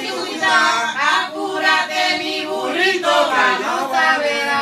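Several voices, men and women, singing together.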